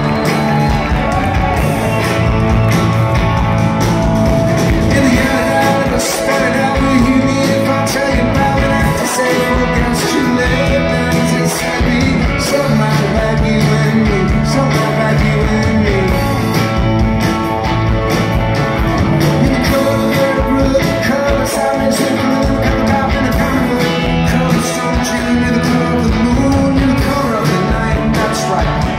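Live rock band playing, heard from within the audience: electric guitars, keyboard and drums, with a male lead voice singing.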